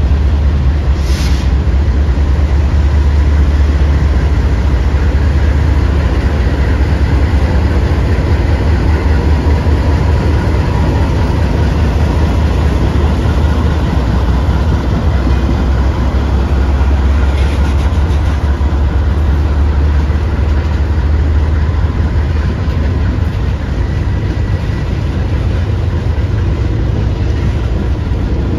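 Diesel-hauled freight train running, a loud steady low rumble with the noise of railcars on the rails. There is a sharp click about a second in.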